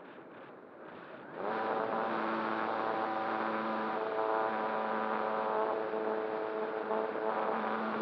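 Electric motor and propeller of an ASW-28 RC glider starting up about a second and a half in and then running steadily with a whine as the glider climbs under power. Before that there is only faint airflow hiss.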